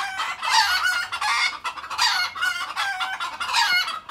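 A flock of chickens calling loudly and excitedly, wavering calls following one another and overlapping almost without pause: the birds are agitated.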